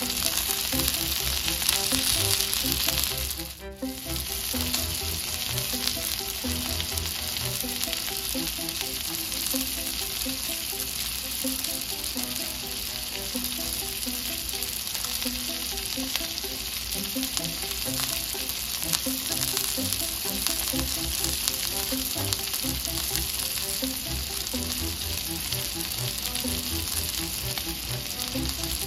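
Pancake batter sizzling on a hot stovetop griddle, a steady frying hiss that briefly drops about three and a half seconds in.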